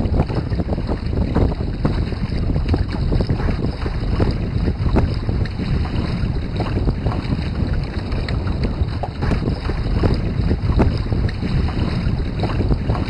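Wind buffeting the microphone over the rush and irregular slap of lake chop against the hull and outrigger float of a small wooden sailing canoe trimaran under way in a Force 4 breeze.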